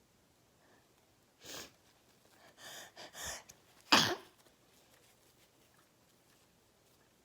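A person sneezing once, loudly and sharply, about four seconds in, after a few shorter breathy sounds that lead up to it.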